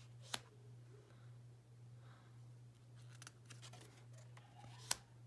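Tarot cards being handled on a cloth: a sharp card tap about a third of a second in and another just before the end as a card is laid on the pile, with faint ticks of card stock between, over a low steady hum.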